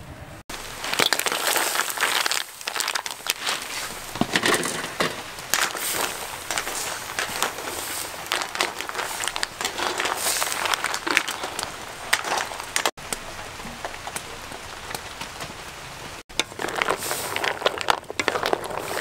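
Mussels sizzling and crackling in a hot wok, a dense spitting crackle with three brief breaks.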